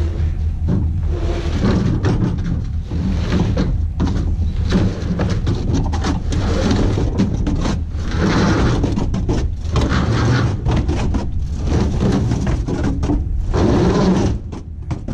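A snowmobile's skis and track scraping, clunking and rattling as it is dragged up an aluminium ramp onto a trailer: a string of short, irregular scrapes and knocks over a steady low rumble.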